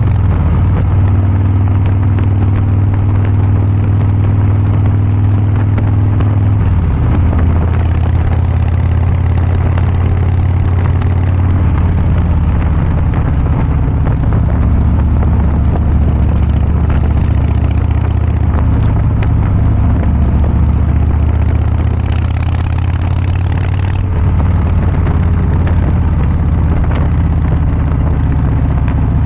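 Harley-Davidson Breakout 114's 1868 cc V-twin running loudly through a Kesstech valved exhaust, with a deep, heavy note. The engine note shifts in pitch several times.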